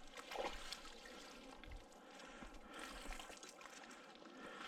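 Faint trickling and splashing of water.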